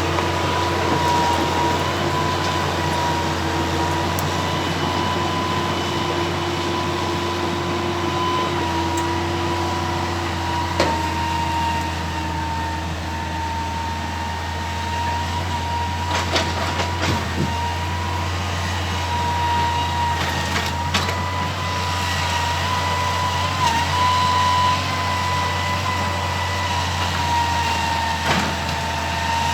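Excavator's diesel engine running steadily under load, with a steady high whine over the low hum. A few sharp knocks are heard near the middle.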